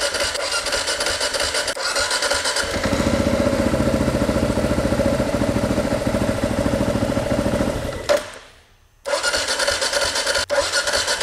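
Single-cylinder Kawasaki KLR engine running on butane fed into the carburetor through an IV line. About three seconds in it picks up and runs louder with an even, pulsing beat, then dies away about eight seconds in as the throttle is touched: the engine is starved of fuel.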